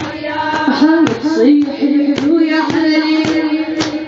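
A woman (mullaya) chanting a Shia latmiya lament, her sung line wavering and sliding in pitch, over a steady beat of about two strikes a second.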